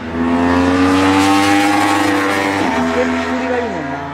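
Honda CBR1000RR's inline-four engine pulling hard on track, its pitch climbing slowly, then the revs drop suddenly about two-thirds of the way through and fall further near the end.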